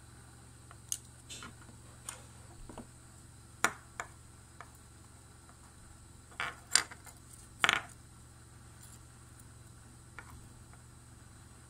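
Scattered light clicks and taps from small parts and tools being handled while microphone wires are fitted, with a cluster of louder ones about six to eight seconds in, over a steady low hum.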